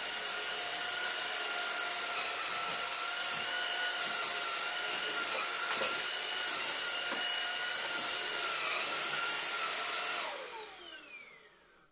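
Dreame V10 cordless stick vacuum cleaner running steadily with a high whine over an airflow hiss. About ten seconds in it is switched off and the whine falls in pitch as the motor spins down.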